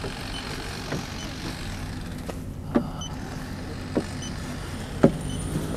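Four short knocks and clicks of a car's parts being handled, the loudest near the end, over a steady low hum.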